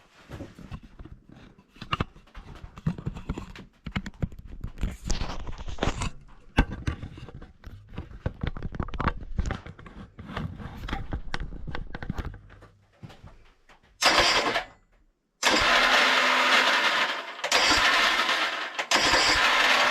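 Hands-on mechanical work on a ride-on lawnmower: many irregular clicks and knocks of tools and metal parts. From about two-thirds of the way in come several loud bursts of rushing noise, a few seconds each, that start and stop abruptly.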